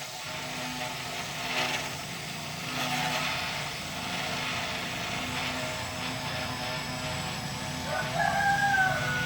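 A rooster crowing once near the end, one long call that holds and then falls away, over a steady mechanical hum.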